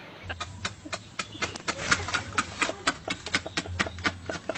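A man laughing hard and hysterically in rapid, staccato bursts, several a second, over a low hum.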